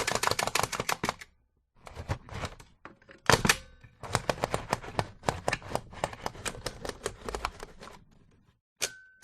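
Perkins Brailler being typed on: fast runs of clacking key strokes embossing braille, broken by short pauses, with a louder double clack about three seconds in. Near the end come a few sharper strikes, each followed by a brief ringing tone.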